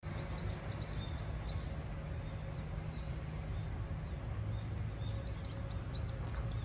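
Small birds chirping: two runs of short, quick, arching chirps, about three a second, one near the start and one in the second half, over a steady low city rumble.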